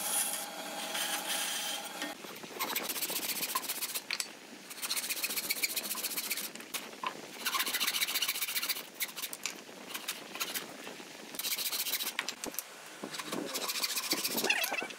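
A band saw running with a steady hum while cutting small pine pieces, stopping abruptly about two seconds in. Then a hand frame saw rasping through wood in several spells of quick back-and-forth strokes with short pauses between them.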